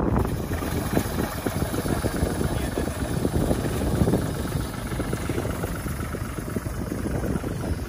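Farm tractor's diesel engine running steadily as the tractor drives along pulling a mounted fertilizer spreader.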